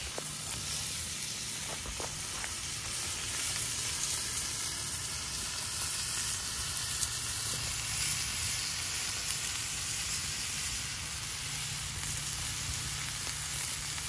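Ribeye steaks sizzling in a cast-iron grill pan over a wood campfire: a steady frying hiss, with a few faint clicks.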